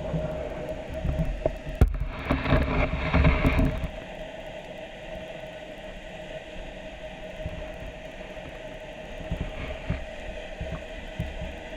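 Muffled underwater sound picked up through an action camera's waterproof housing: a low rumble of water movement under a faint steady hum. A knock comes near two seconds in, followed by a louder rushing stretch of water noise that lasts until about four seconds in.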